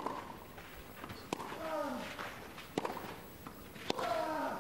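Tennis rally on a clay court: four sharp racquet-on-ball strikes about a second and a half apart, as the ball goes back and forth. Two of the strikes are followed at once by a short vocal grunt that falls in pitch, from the player hitting them.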